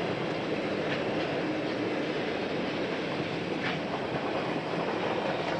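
Freight train cars, boxcars and then tank cars, rolling past: a steady rumble of steel wheels on rail with a few clacks over the rail joints.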